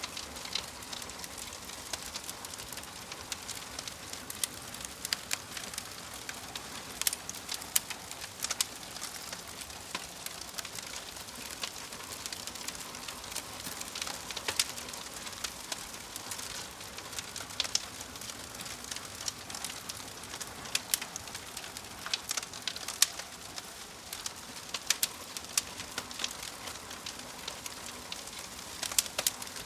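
Wood fire crackling: many sharp, irregular pops and snaps over a steady soft hiss.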